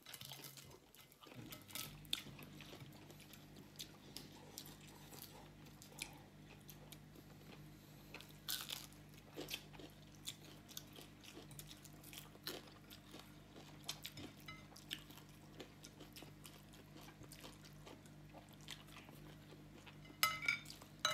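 Close-up eating sounds: chewing, soft crunches and small clicks of food and fingers against plates, scattered irregularly, over a steady low hum that comes in about a second and a half in. A few sharper clinks near the end.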